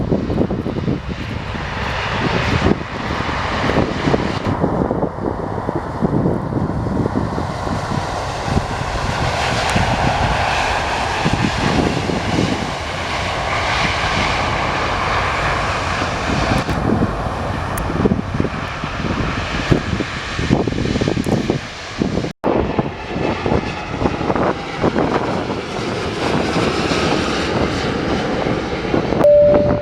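Airbus A350-900 jet airliner's Rolls-Royce Trent XWB engines, a loud continuous rushing jet noise with wind gusting on the microphone. The sound drops out for an instant about two-thirds of the way through, then similar noise resumes.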